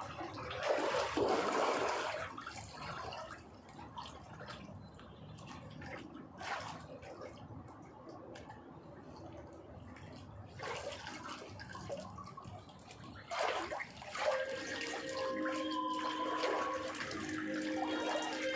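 Water running in uneven surges, the strongest about a second in. Several steady tones join near the end.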